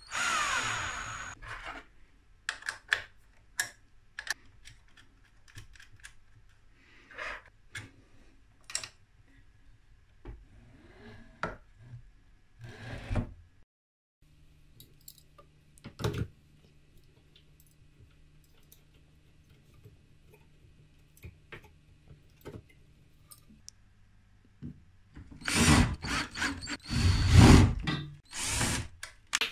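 Cordless drill driving screws into metal plates in short runs, with a loud run at the start and several more loud runs near the end, and scattered clicks and knocks of handling parts and screws in between.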